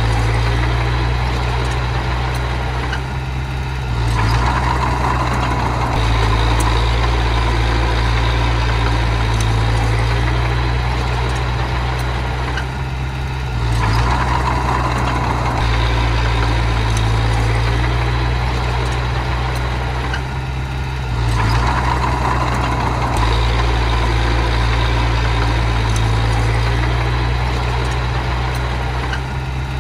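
Small bulldozer's engine running steadily under work. About every eight or nine seconds the sound drops briefly, then a higher whine picks up again.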